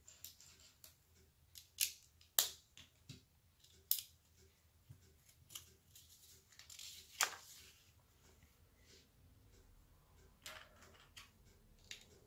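Small plastic LEGO bricks clicking and tapping against each other as pieces are picked from a loose pile and pressed onto a BrickHeadz figure: a series of separate sharp clicks. A short paper rustle comes about halfway through, as the instruction booklet page is turned.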